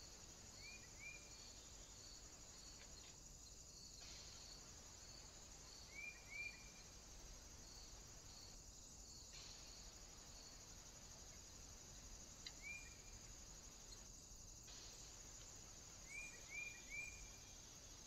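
Faint insect chorus: a steady high hiss with regular chirps about twice a second. A few short chirps from a small bird come in pairs and triplets, four times.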